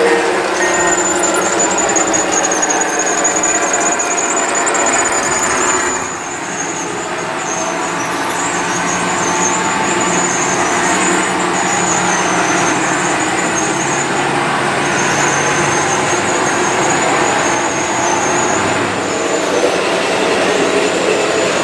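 G scale model trains running on track, their metal wheels rolling with a continuous high squeal that wavers in pitch. The sound drops briefly about six seconds in.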